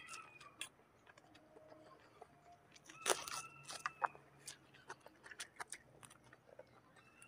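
Close-up eating sounds: chewing of noodles and chicken, with clicks and scrapes of a fork against a plate. The loudest cluster of clicks and scraping comes about three seconds in.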